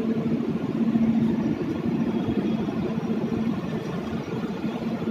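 LHB passenger coaches of a departing Indian Railways express rolling slowly past the platform: a steady rumble of wheels on rail with a low hum.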